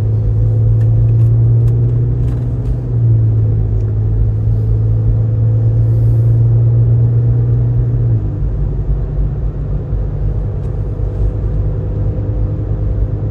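Inside the cabin of a 2020 Ford Explorer ST on the road: a steady low drone of engine and road noise. A deep hum in it drops away about eight seconds in.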